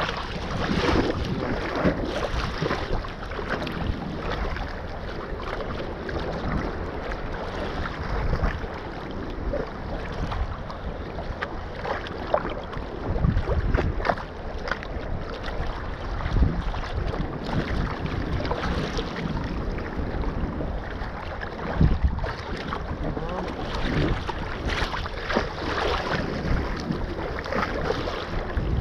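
Choppy sea water sloshing and slapping right at the microphone, with wind buffeting it and irregular splashes throughout.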